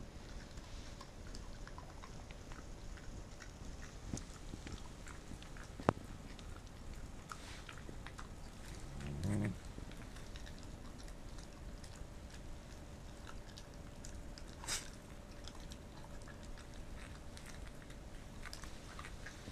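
Pembroke Welsh corgi nosing and licking at the wooden floor, with faint scattered ticks of nibbling over low room noise. There is a sharp click about six seconds in and a brief low-pitched sound about nine seconds in.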